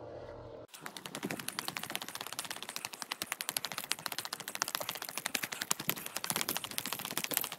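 A brief steady hum that cuts off under a second in, followed by a dense, fast, irregular run of sharp clicks and crackles.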